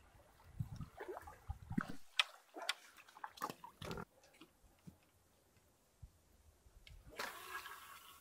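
Fishing tackle being handled: low thuds and a few low grunts, then a run of sharp clicks and taps. Near the end comes a brief swish as a spinning rod is swung back to cast.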